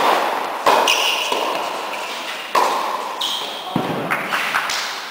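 Tennis rally in an echoing indoor hall: several sharp racket-on-ball strikes a second or two apart, each ringing off the hall, with players calling out.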